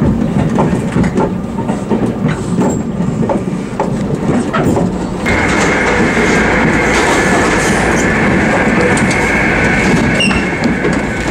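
Running noise inside a JR Kyushu 787 series electric train: a steady rumble with scattered wheel clicks over the rail joints. About five seconds in, a steady high whine joins and holds.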